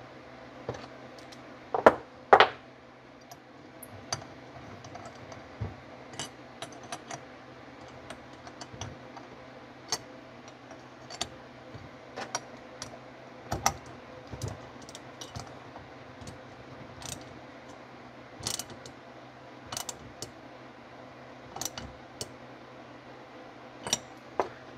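Scattered small clicks and taps of metal carburetor parts being handled and fitted as the main nozzle goes into a Marvel Schebler carburetor body, with two louder knocks about two seconds in. A faint steady hum runs underneath.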